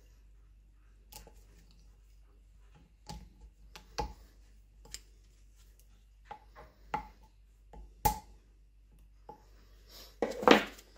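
Scattered light clicks and taps of metal gearbox parts being handled as a locking washer is fitted onto a shaft, with a louder clatter near the end.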